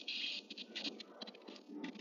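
Faint light rain pattering: scattered, irregular soft ticks.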